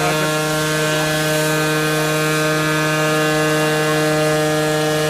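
Two-stroke scooter engine held flat out at constant revs during a burnout, a steady high-pitched drone that does not rise or fall.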